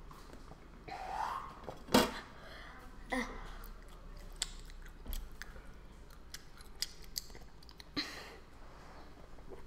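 A person drinking from a small plastic bottle and swallowing, with small clicks and mouth sounds between sips. A sharp knock about two seconds in is the loudest sound.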